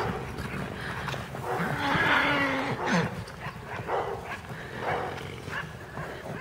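Horses running loose across a grass paddock, their hoofbeats thudding irregularly, with a drawn-out animal call lasting just over a second about two seconds in.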